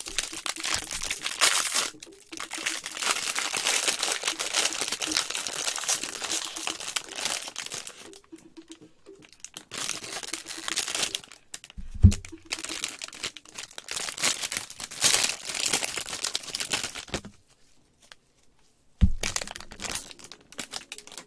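Foil wrapper of a 2020 Bowman Draft baseball card pack crinkling and tearing as it is handled and ripped open, in stretches of a few seconds with short pauses. Two dull knocks partway through.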